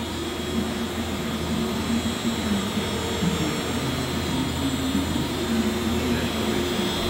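Weiler Omni V220 industrial meat grinder running empty, its stainless steel auger turning in the hopper. The drive motors and gearbox make a steady hum.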